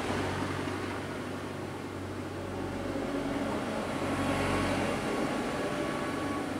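Steady low engine drone over a background wash of sea noise.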